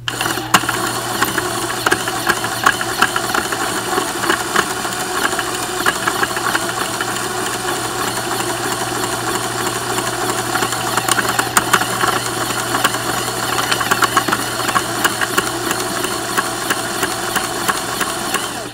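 Motor-driven Lego shredder running, its plastic gears and cutter rollers turning with a steady mechanical whir and dense irregular clicking and crackle as it shreds aluminium foil bits. It starts abruptly and cuts off abruptly.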